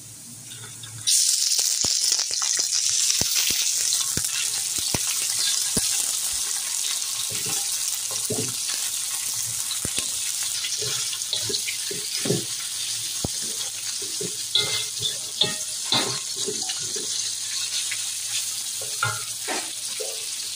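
Raw chicken pieces hitting hot oil in a wok with fried onions and garlic: a loud sizzle starts suddenly about a second in and carries on steadily, easing slightly. Through it come scrapes and clacks of a wooden spatula stirring against the wok.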